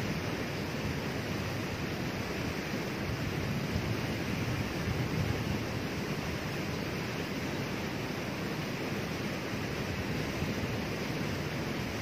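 Small waterfall pouring over rock ledges into a river pool: a steady, even rush of falling water.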